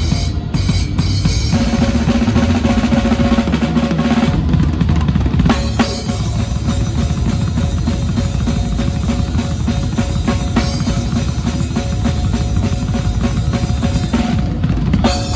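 Band playing a song at soundcheck, led by a drum kit: fast, steady strokes of kick and snare, with held notes from the other instruments. The drumming turns denser about six seconds in.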